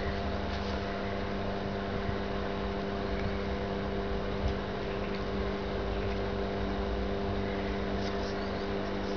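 Steady mechanical drone, a constant hum of several held tones over a low rumble, unchanging throughout, with a few faint ticks.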